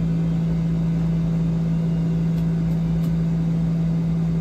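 A steady low hum that stays level and unchanging, with a few faint ticks around the middle.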